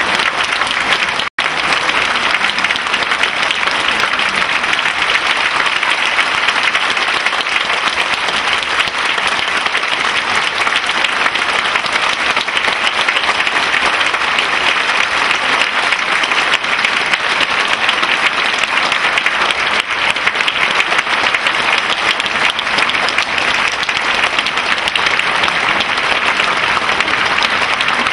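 Concert hall audience applauding steadily, with a brief dropout in the sound about a second in.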